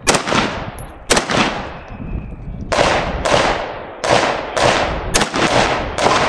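AR-15-style rifle with a Kahntrol muzzle brake firing about nine shots, each a sharp crack trailed by a dying echo. The first shots come about a second apart, then the pace quickens to about two a second.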